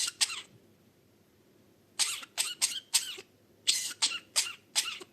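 Budgerigar making short, raspy cough-like sounds: two at the start, then a quick run of about eight more from about two seconds in, like a burst of laughter.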